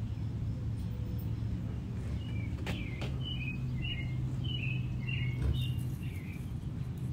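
A small songbird singing a quick run of short chirping notes, about eight or nine, over a steady low hum of background noise, with a few faint knocks.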